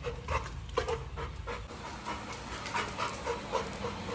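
Yellow Labrador retriever puppy panting hard in quick, uneven breaths, worked up after his owner has left home.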